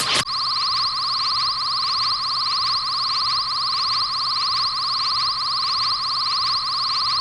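Anime raygun sound effect: a noisy blast that cuts off just after the start, then a steady electronic buzzing hum of the charged beam, pulsing about every half-second.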